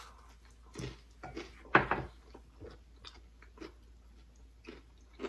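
Two people biting into and chewing pizza slices: irregular short bites and chewing sounds, the loudest about two seconds in.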